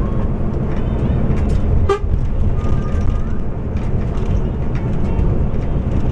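Scania bus engine and drivetrain accelerating under automatic transmission, heard from inside the cabin as a steady, loud low rumble with road noise. A brief sharp sound comes about two seconds in, and a short horn toot follows about a second later.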